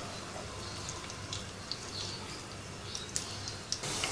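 Sliced onions frying in hot oil in a pan, a light steady sizzle with scattered small pops and crackles, as a silicone spatula stirs them. The sizzle turns suddenly louder just before the end.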